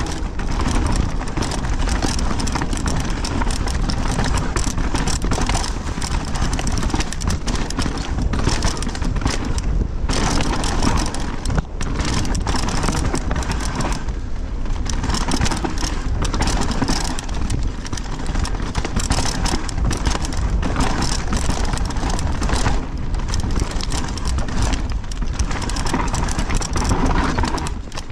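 Mountain bike descending a dirt trail at speed: tyres rolling over dirt, stones and dry leaves, with the bike rattling and knocking over bumps and wind rushing over a chest-mounted action camera.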